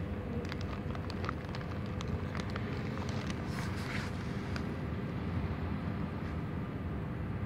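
A cat crunching dry kibble off a plastic bag: a run of small sharp crunches and clicks through the first four and a half seconds, then fewer, over a steady low rumble of background noise.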